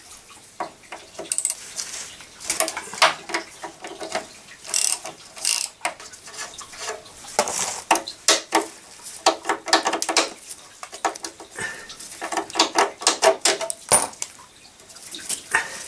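Metal hand tools clinking and clicking on a car's front suspension bolts as the lower leaf spring is unbolted: a socket ratchet, loose sockets and nuts knocking against steel, in irregular clusters of sharp clinks, some with a short ring.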